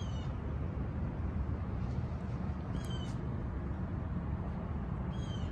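Three short bird calls, each sliding down in pitch, a few seconds apart, over a steady low rumble.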